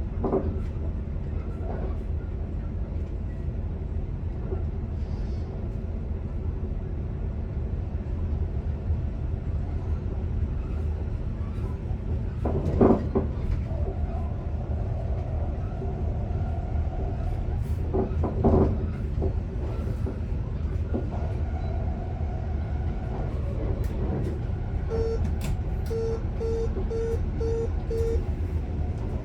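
Commuter train running, heard from inside the driver's cab: a steady low rumble, two louder knocks about 13 and 18 seconds in, and a run of six short electronic beeps from the cab equipment near the end.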